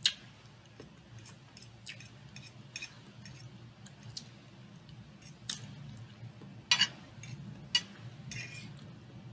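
A person chewing food, with scattered wet mouth clicks and smacks, the loudest two a little over halfway through, over a faint low hum.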